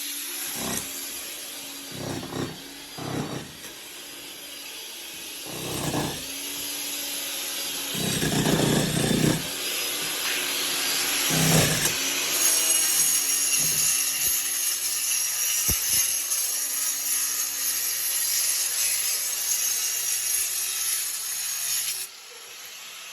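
Irregular rasping strokes of a hand tool working material, like sawing, the longest stroke run coming about eight seconds in, over a steady hiss. The strokes stop after about twelve seconds, leaving a steady hiss with faint high whining tones that drops away shortly before the end.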